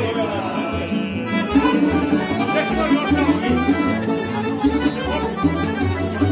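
Dallapè accordion playing a folk tune, with an upright double bass plucking a steady run of low notes underneath.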